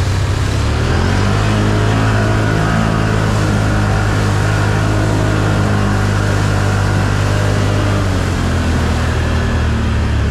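Can-Am 1000 ATV's V-twin engine running steadily while riding, over a continuous rushing noise. Its note shifts a little about a second in and again later on.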